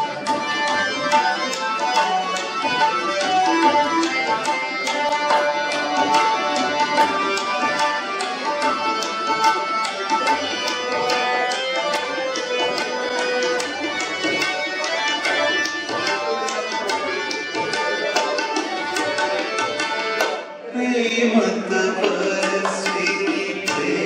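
Live tabla playing a fast, dense rhythm over a held melody, in a music-only passage without singing. About 20 seconds in, the music briefly drops and then starts again.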